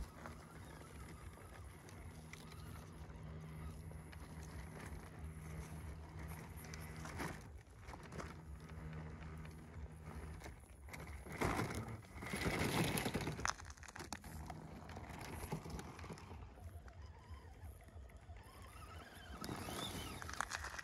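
Electric motors and gearboxes of small RC crawler trucks whining as they drive over rough ground, with tyres and chassis scraping and knocking. A louder noisy stretch comes about twelve seconds in, and the motor whine rises in pitch near the end.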